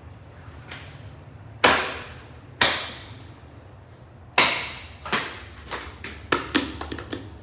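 Sharp knocks and bangs that echo in a hard-walled space: three loud ones about a second apart, then a quicker run of lighter ones near the end.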